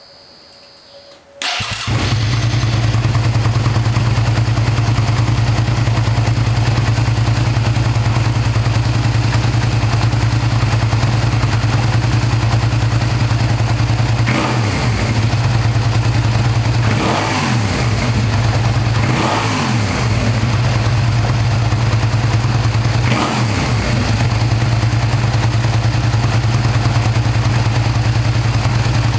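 Suzuki SV650S 645 cc V-twin engine through its exhaust. It comes in suddenly about a second and a half in and idles steadily. In the second half it gets several short throttle blips that rise and fall in pitch.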